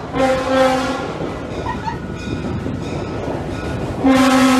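Train horn on a Budd RDC rail diesel car: a blast of about a second at the start and a second blast starting about four seconds in, sounded for a grade crossing. The train's steady running rumble fills the gap between the blasts.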